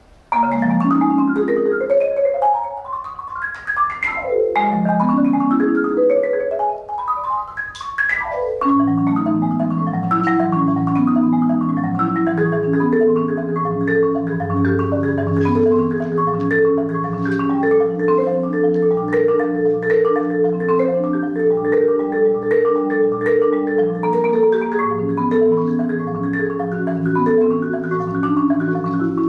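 Yamaha concert marimba played with four mallets. Just after the start come two fast runs climbing from the low to the high register. From about eight seconds in it settles into a dense, steady pattern of repeated low bass notes under faster repeating notes higher up.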